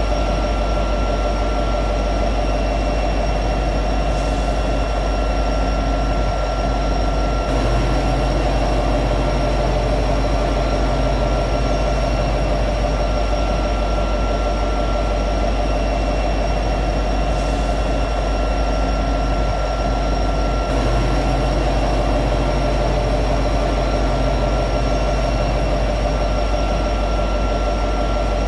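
EMD SD70ACE diesel-electric locomotive's 16-cylinder two-stroke 710 engine running at high idle while standing still: a steady low drone with constant whining tones over it.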